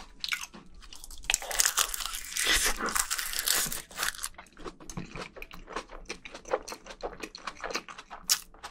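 Close-miked mukbang eating: a spoonful of rice mixed with spicy crab marinade and crisp seaweed flakes is taken in, with a loud stretch of crunching about a second in, then steady wet chewing with small clicks and smacks.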